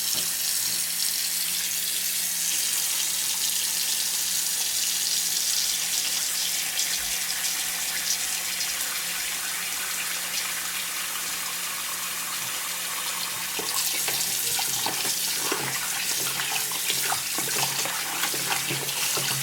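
Kitchen faucet running steadily into a sink. About two-thirds of the way through, the sound turns uneven and splashy as the water breaks over turkey necks being rinsed clean of lemon juice and bone debris.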